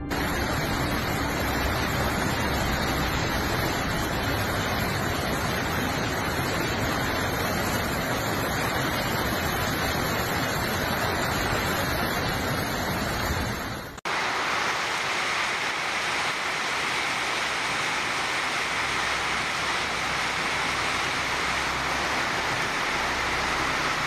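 Steady rushing noise of storm rain and floodwater. About fourteen seconds in it changes abruptly to a brighter, hissier rush.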